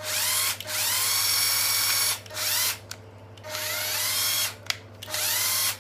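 Cordless drill motor run with no load in five short trigger pulls, each with a whine that rises as it spins up. The longest pull starts about a second in and lasts over a second.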